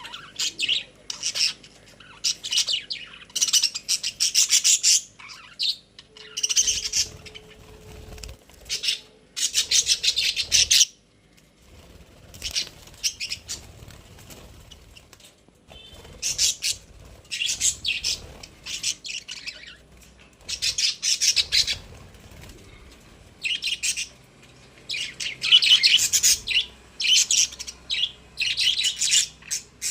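Pet budgerigars chirping and chattering in bouts of rapid, high twittering, broken by short pauses.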